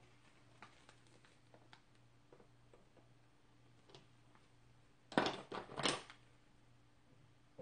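Glass nail polish bottles clinking and clattering as a hand rummages through a box of them: faint light taps at first, then two short bursts of clatter about five and six seconds in.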